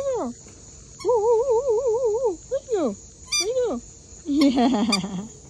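Rubber squeaky toy bone squeaking again and again as a Yorkshire terrier puppy chews it, in short squeaks that rise and fall in pitch. About a second in comes one long warbling squeak, and near the end a quick rattling run of squeaks.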